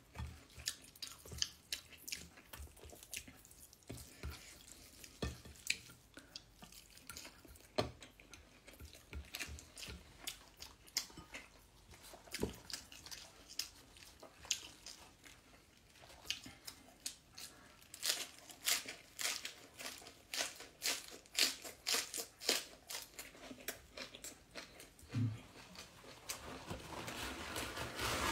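Close-up mouth sounds of a person eating chicken and rice with her fingers: irregular chewing, smacking and sticky clicks, thickest past the middle, with a breathy hiss building near the end.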